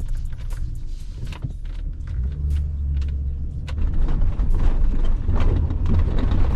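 Chevy Silverado pickup driven hard over rough dirt trail: a deep engine drone with scattered knocks and rattles from the truck, growing louder and rougher about four seconds in as it pushes through a spot where it could get stuck.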